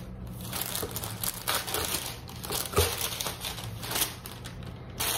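Tissue paper rustling and crinkling irregularly as a gift box is unwrapped by hand, with a single knock nearly three seconds in.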